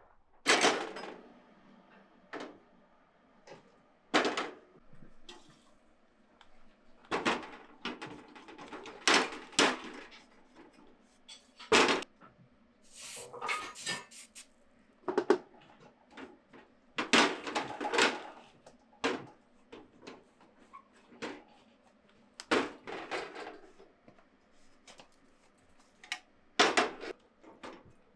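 Copper tamagoyaki pan and metal tinning tools knocking and clinking on a gas stove, in irregular sharp clanks one every second or two. A quicker run of clicks and scraping comes about halfway through, while the inside of the pan is being tinned.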